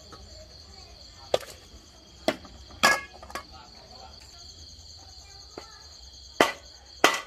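Steady chorus of crickets and other night insects, with a handful of sharp knocks and clatters in two groups, the one about three seconds in ringing briefly.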